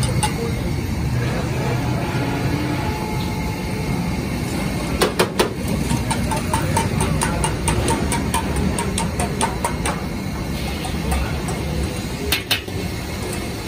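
Metal ladle clanking and scraping against a large iron wok: a quick cluster of sharp knocks about five seconds in, lighter ticks after it, and two more knocks near the end. A steady low rumble runs underneath.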